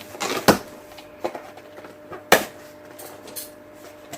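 Cardboard shipping box being handled and opened, with two sharp knocks, about half a second in and a little past two seconds, and a lighter one between them.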